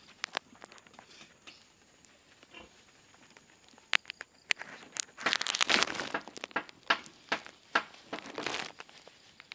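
Plastic gloves and plastic wrapping crinkling as hands wipe a newborn piglet, with scattered sharp clicks and crackles. The crinkling is loudest just past halfway and again near the end.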